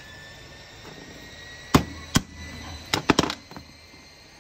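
Sharp metal-on-metal strikes as the cotter pins of a PCC streetcar motor brush holder are sheared off with a steel punch: two strikes, then a quick run of four.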